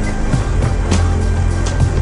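Background music with sustained low notes and a few sharp accents.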